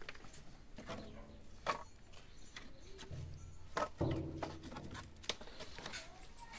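Dry firewood branches knocking and clattering against each other as they are pulled off a woodpile and gathered up by hand, a series of separate wooden knocks.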